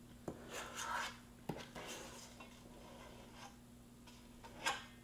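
Metal ice cream scoop scraping through cookie dough against the side of a stainless steel mixing bowl: a few short scrapes and clicks, the loudest near the end. A faint steady hum runs underneath.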